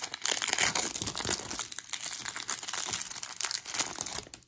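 Clear plastic wrapping of a pack of baseball cards crinkling and crackling as it is torn open and pulled off the cards by hand; it stops about four seconds in.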